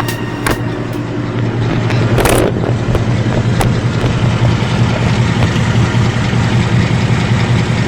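Third-generation Ford Coyote 5.0 V8 of a Mustang GT idling steadily, with a few sharp clicks and a brief rushing noise about two seconds in.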